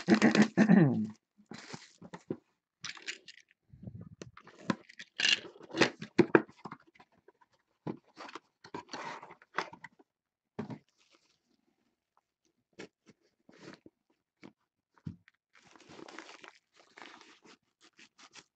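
Plastic shrink wrap crinkling and tearing as it is stripped off a small cardboard box, followed by the box flaps opening and a cloth drawstring bag rustling, in irregular bursts with short pauses and a few light clicks.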